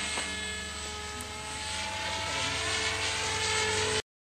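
Radio-controlled model helicopter in flight, its engine and rotor running with a steady whine. It grows a little louder toward the end, then cuts off suddenly about four seconds in.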